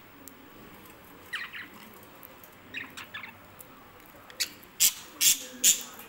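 Pet budgerigars chirping: a few short chirps, then four loud, harsh squawks in quick succession near the end.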